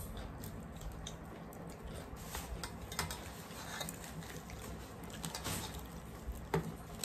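Close-up eating sounds of bhature and chole eaten by hand: chewing, puffy fried bread being torn, and fingers scooping curry from steel bowls and plates. These give scattered small clicks and crackles, with a sharper tap about three seconds in and another near the end.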